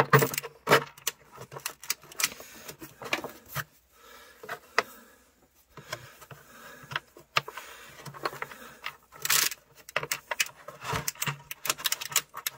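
Hand ratchet on a long socket extension tightening a bolt through a plastic battery tray, clicking irregularly in short spells with a gritty, crunchy scrape, which the owner puts down to dirt left in the threads.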